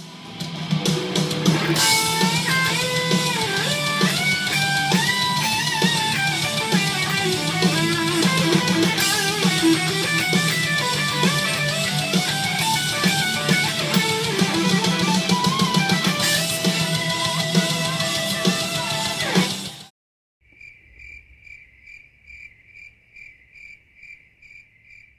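Electric guitar lead solo with bends and fast runs over a backing track, cutting off suddenly about 20 seconds in. Then a cricket chirping in an even pulse, two to three chirps a second.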